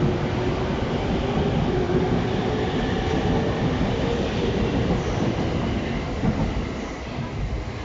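Electric commuter train pulling out of a station platform: a steady rumble of wheels on rail with a faint hum under it, easing off a little near the end.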